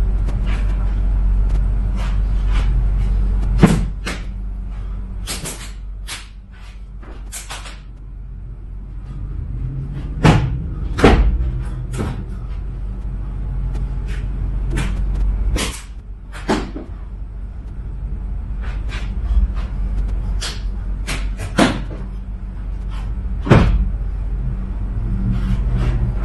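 Sharp slaps at irregular intervals, in short clusters, from a person practising silat hand and footwork movements, over a steady low hum.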